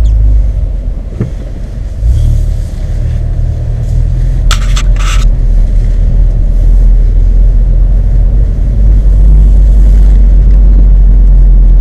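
Exhaust of a 2016 Mazda 3 GT's 2.5-litre four-cylinder running through twin Spintech Super Pro Street 9000 mufflers: a steady low rumble that swells about two seconds in and again near the end. A couple of short scraping clicks come about four and a half seconds in.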